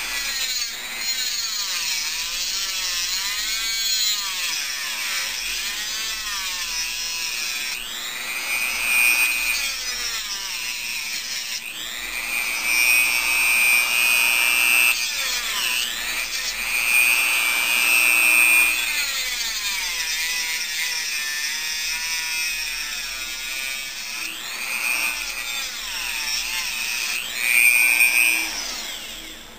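Dremel rotary tool with a cutoff wheel running with a high whine, cutting the metal tabs off a dead LiPo cell. The pitch keeps dipping and rising as the wheel bites. The tool stops just before the end.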